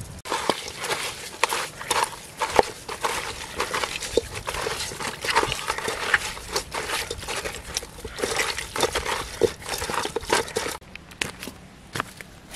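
Hands mixing raw frogs and daikon with salt and seasoning in an aluminium pot: a dense run of wet squelching and crackling that stops suddenly about eleven seconds in.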